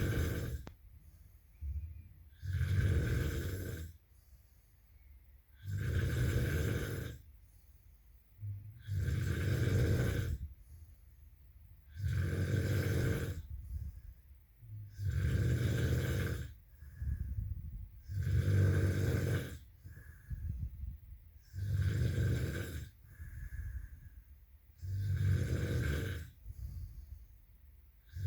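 A sleeping person snoring in a slow, steady rhythm: a low snore about every three seconds, with a fainter breath between snores.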